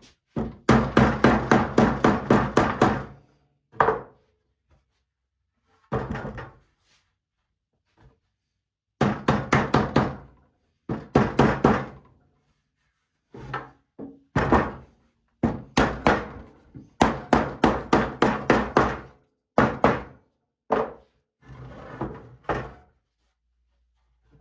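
Rapid hammer blows on wood, in runs of quick strikes about five a second with short pauses between, driving a glued stile down onto the panel's tongue-and-groove joints to close them.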